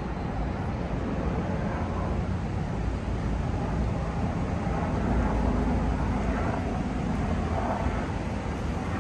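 Steady rumble of city traffic: an even, low, continuous noise with no single event standing out.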